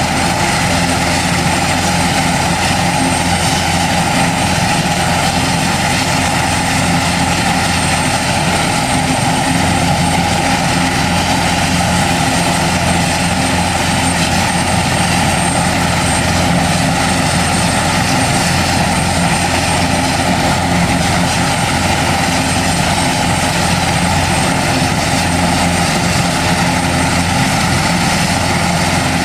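Airbus H225 helicopter's twin turboshaft engines and turning rotors running steadily on the ground after start-up: a high thin turbine whine over a lower hum, even throughout.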